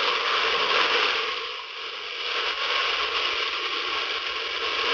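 Fried chicken feet sizzling in hot oil and sauce in a steel pot as they are stirred; the sizzle dips briefly a little under two seconds in.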